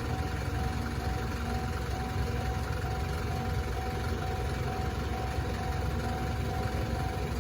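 Japanese railway level-crossing warning bell ringing over and over at an even pace, over a steady low rumble.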